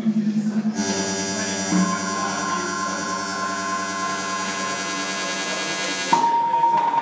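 Live-coded electronic music from SuperCollider and electronics: dense layers of held synthetic drone tones. A high tone enters about two seconds in, and near the end the texture cuts abruptly to a single held tone.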